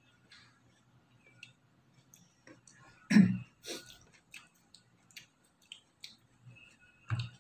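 Faint clicking mouth noises of people eating raw apple mango with chili. About three seconds in there is a short, loud throat clearing, followed by a smaller one and another near the end.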